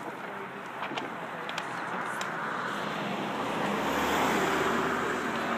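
A car passing on the street: tyre and engine noise that swells to a peak about four seconds in and then eases slightly.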